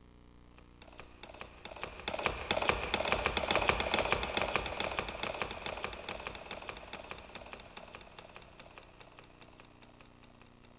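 Sound effect from a TJ Media PRO-3000 karaoke machine's Roland SC-88 sound module: a dense patter of rapid clicks that swells over about two seconds, then fades away over the next several seconds.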